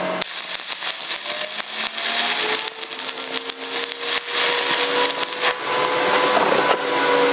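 Stick welding arc from a Brutus A arc rod burning down into a bolt hole, crackling continuously as it builds weld up on a broken bolt inside the housing. The arc strikes suddenly about a quarter second in.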